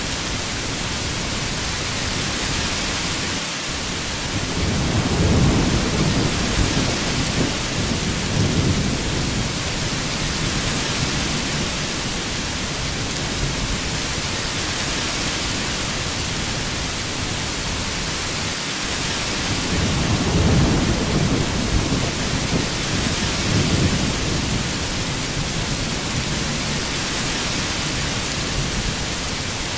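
Heavy rain falling steadily, with two low rolls of thunder, the first about five seconds in and the second about twenty seconds in, each rumbling for a few seconds.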